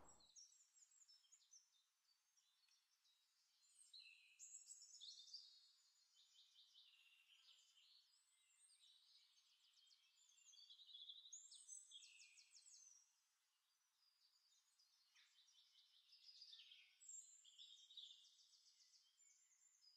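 Near silence with very faint birdsong: scattered chirps and quick high trills.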